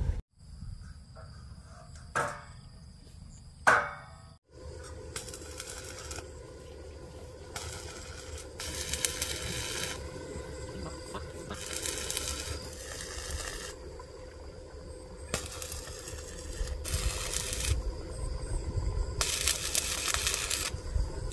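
Stick (arc) welding on steel box-section tubing: the arc crackles and hisses in a series of separate bursts of a second or two each, with short pauses between them. Near the start, a quieter stretch holds two sharp knocks.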